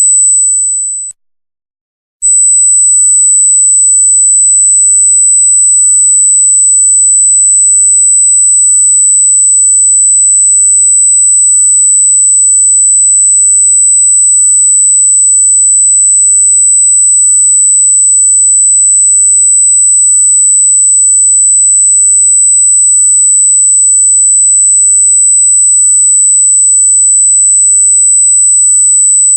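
Loud, steady, very high-pitched pure electronic tone, a single unwavering pitch like a test-tone sine wave. About a second in it fades out, stops for about a second, then comes back at full strength and holds.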